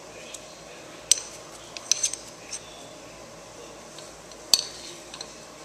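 Sharp metallic clinks of a static wheel balancer's steel cone and axle parts knocking against each other and the motorcycle wheel hub as they are handled. There are several scattered clinks, and the loudest comes about four and a half seconds in.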